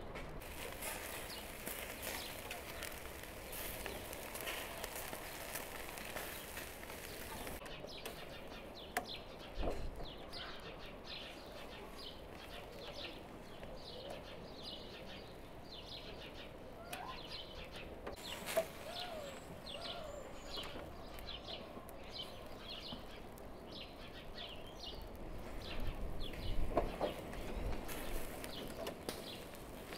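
Small birds chirping over and over, with a faint steady hiss in the first few seconds and a couple of dull knocks.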